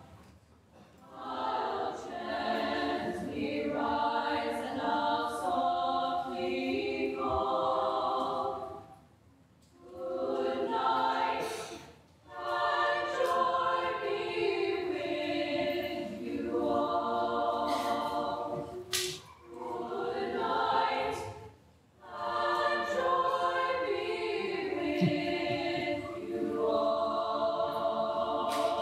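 Small women's choir singing a cappella: held chords sung in phrases several seconds long, with short pauses between phrases.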